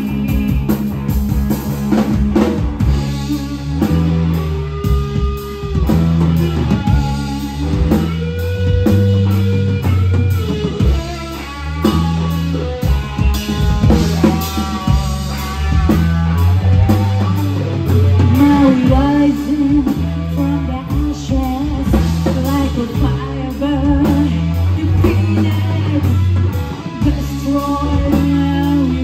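Rock song with a woman singing over electric bass, electric guitar and a drum kit.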